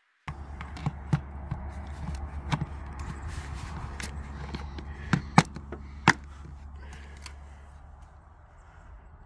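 Clicks and knocks of a hand handling a plastic OnWote security camera on its wall mount, with two sharper clicks a little past halfway, over a steady low rumble.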